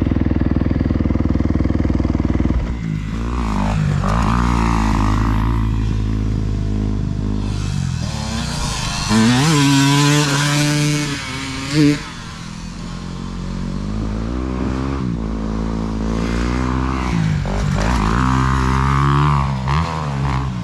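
Dirt bike engines revving up and down. A steady low engine drone changes about two and a half seconds in to engine notes rising and falling as bikes ride nearby. Around the middle, one bike passes close and is loudest, its pitch rising and then dropping away.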